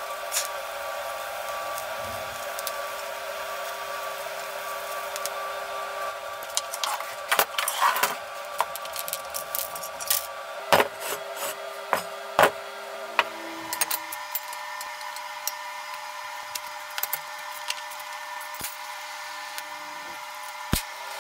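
Steel tube frame pieces knocking and clanking against a cast iron swage block and bench, in a cluster of sharp knocks in the middle, over a steady workshop hum.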